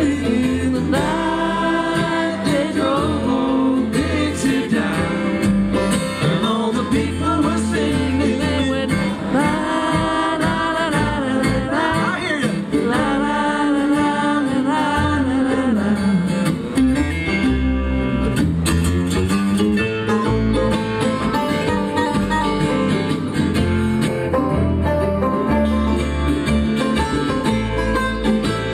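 Bluegrass band playing live: acoustic guitar, mandolin, banjo and upright double bass, with a voice singing the melody through the first half. The banjo comes forward near the end.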